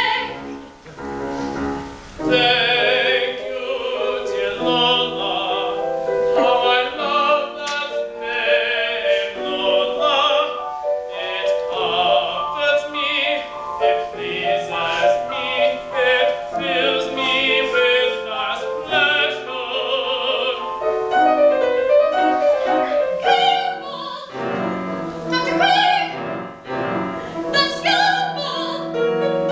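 Live operatic singing with wide vibrato over piano accompaniment. The voice breaks off briefly near the start and comes back in about two seconds in.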